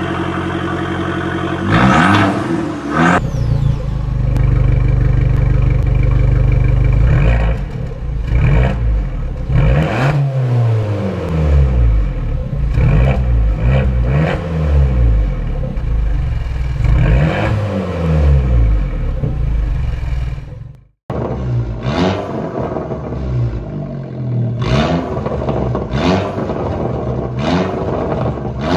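Abarth 1.4-litre turbocharged four-cylinder engines with Record Monza exhausts, one car after another. The first idles, then gets a quick blip and a held high rev. Next come repeated free revs that rise and fall every second or two, with sharp cracks from the exhaust as the revs drop. After a brief silent cut about two-thirds of the way in, another car revs the same way with its Monza exhaust valve open.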